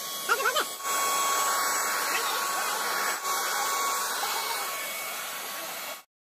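Electric paint spray gun running steadily, its blower motor whining under the hiss of paint spraying out of the nozzle. A brief high squeak sounds less than a second in, and the spraying sound cuts off suddenly near the end.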